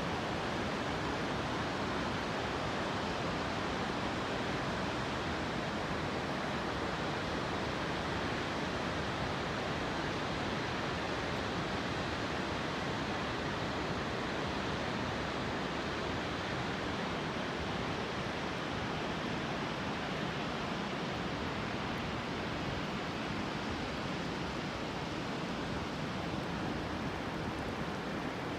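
Waterfall crashing, a steady, even rush of falling water that keeps the same level throughout.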